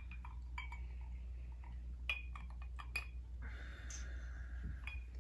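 Ice clinking lightly in a drinking glass as it is raised and sipped, a scattering of small sharp clicks with a short ring, over a steady low hum.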